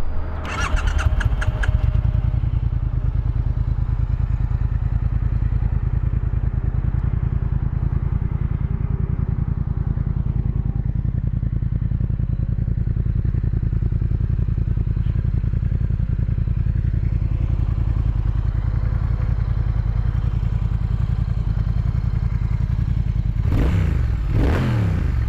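A 2017 Triumph Thruxton R's 1200cc parallel-twin engine starts just after the beginning and then idles steadily. Near the end the throttle is blipped twice, the revs rising and falling each time.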